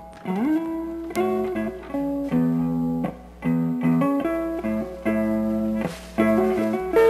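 Background music on guitar: plucked chords and single notes, with a note sliding up in pitch near the start.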